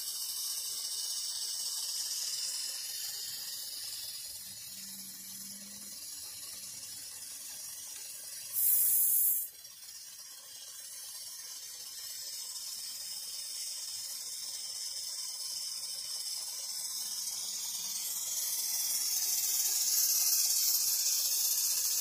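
Steady hiss of steam from a model twin-cylinder oscillating steam engine running on live steam. A sharp, much louder hiss lasts about a second near the middle, and the hiss grows louder toward the end.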